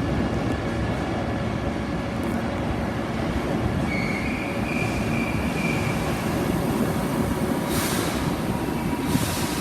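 Keihan 8000-series limited express train pulling into a station, its wheels and running gear making a steady rumble. A high wheel squeal sounds for about two seconds in the middle. Two short hisses come near the end.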